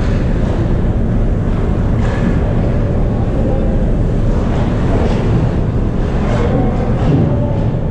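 Ice hockey game sound in a rink: a steady low rumble with several short scraping hisses, typical of skate blades on the ice.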